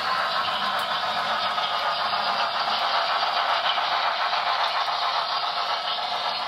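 HO-scale model freight cars rolling past close by on the track: a steady rattling clatter of small wheels on the rails.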